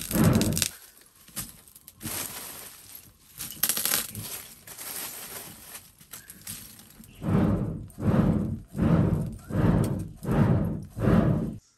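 Lumps of charcoal clinking as they are handled, then a hand-cranked primitive spinning blower pumping air into a charcoal forge in six rhythmic whooshing pulses, about 0.7 s apart, that stop abruptly near the end.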